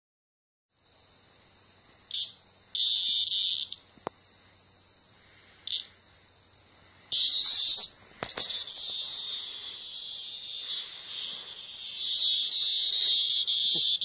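A cicada buzzing in harsh, loud bursts as a cat grabs and bats at it, the insect's distress buzz when seized; the buzzing becomes continuous near the end. A fainter steady high insect hum runs underneath.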